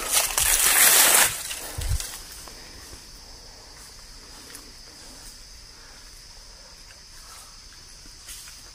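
Loud crunching and rustling of dry leaf litter and undergrowth for the first second or so, with a single thump near two seconds. After that, a steady high-pitched drone of forest insects.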